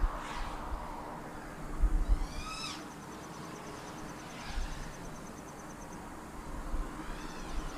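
FPV quadcopter's brushless motors and propellers whining, with the pitch sweeping down several times as the throttle changes. Wind buffets the onboard camera's microphone in low rumbling gusts.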